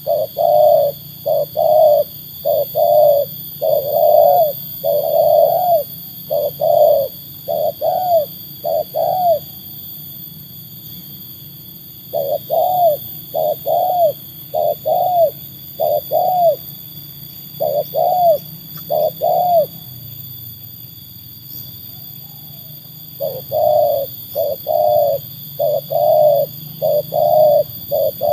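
Spotted dove (tekukur) cooing: runs of short coos, each rising then falling in pitch, a little more than one a second, in three bouts separated by pauses of two or three seconds.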